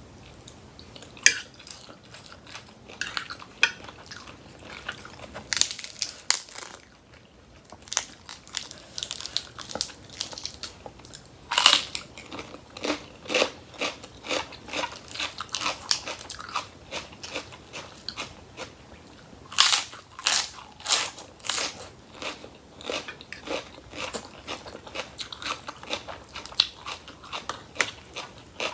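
A person biting and chewing crisp raw vegetables close to the microphone: irregular wet crunches, several a second at times.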